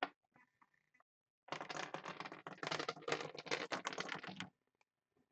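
Chip dropped down a Plinko board, clattering through the pegs in a fast run of clicks for about three seconds, starting about a second and a half in.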